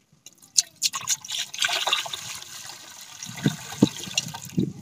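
Hot water poured from a pot into a wide aluminium basin, splashing and filling it, starting about half a second in. A few dull knocks near the end.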